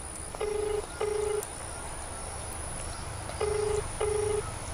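Telephone ringback tone heard through a mobile phone's loudspeaker: two double rings of a low steady tone, each ring under half a second, the pairs about three seconds apart. It is the call to the GSM motor starter's SIM ringing and not yet answered.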